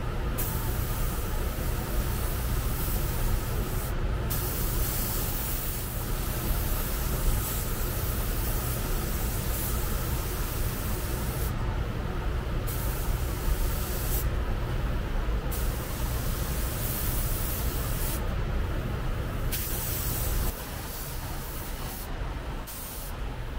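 Compressed air hissing from a body-shop air tool, switched on and off in bursts of a few seconds with short breaks between. A steady low hum runs underneath and drops away about twenty seconds in.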